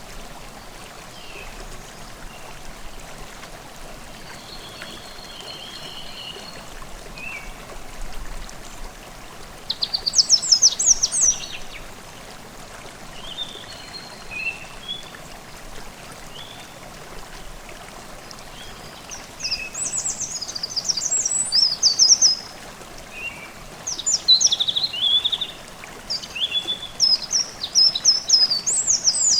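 A forest stream babbling steadily, with small songbirds singing over it in phrases of quick, high notes; the loudest phrases come about a third of the way in and several times in the last third.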